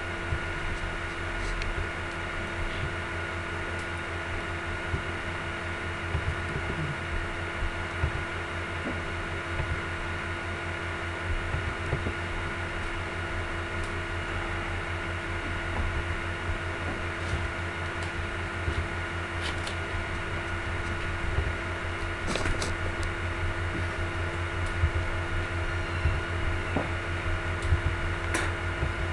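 Steady fan-like machine hum with a few steady tones in it. A few scattered clicks come through, the plainest in the second half.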